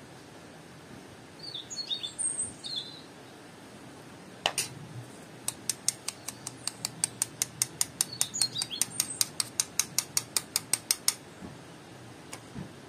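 Round metal flour sieve tapped in a quick even rhythm, about five sharp taps a second for some five seconds, as flour is worked through the mesh; a single click comes a second before. Birds chirp briefly before the tapping and again during it.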